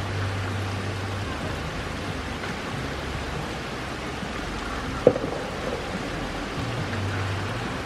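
Rain falling steadily on a wet paved yard and lawn, an even hiss. One sharp knock comes about five seconds in.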